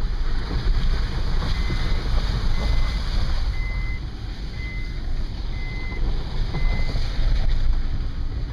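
Car rolling slowly along a rough, puddled dirt road, heard from inside the cabin: a steady low rumble of tyres and engine with wind noise. A short high electronic beep sounds six times, about once a second, through the middle.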